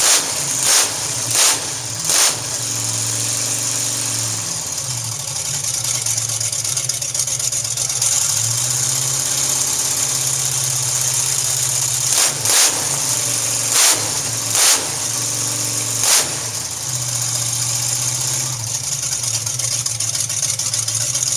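Chrysler Hemi Firepower V8 idling steadily, its pitch stepping up and down a little, with several short, sharp, loud bursts: three in the first couple of seconds and four more about midway through.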